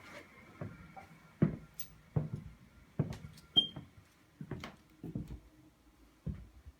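Footsteps on a hard floor, about eight steps at an even walking pace, with one short squeak about halfway through.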